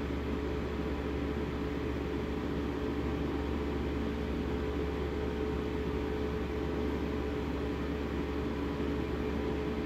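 Steady mechanical hum: a low drone with a fainter, higher steady tone over it.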